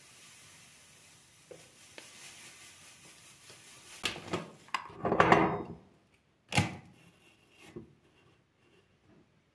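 Objects being handled on a hard surface: a few knocks about four seconds in, a short scraping rub, then a single sharp knock and a softer one.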